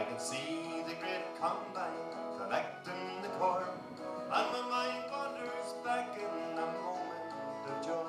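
Soundtrack music: a folk-country song passage led by plucked acoustic guitar, with no clear sung words.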